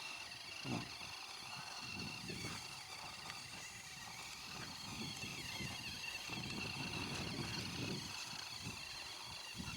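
Insects droning steadily in the background, under irregular low rumbling that swells and fades.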